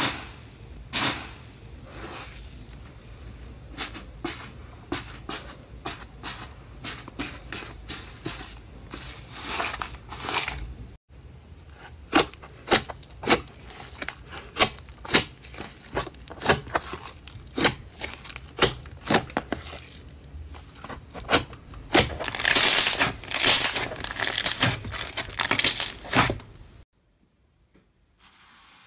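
Slime squished, pressed and poked by hand, with many sharp sticky pops and crackles. About 22 seconds in there is a longer stretch of dense crackling, and it drops to near silence in the last couple of seconds.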